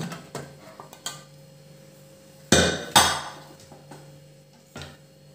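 A metal pressure cooker lid being opened and lifted off: a few light clicks and scrapes, then two loud metal clanks about half a second apart midway through, and a smaller knock near the end.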